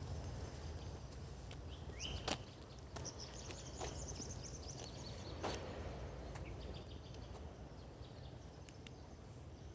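Outdoor ambience: a steady low rumble of wind on the microphone, a few sharp knocks about two, four and five and a half seconds in, and faint high chirps.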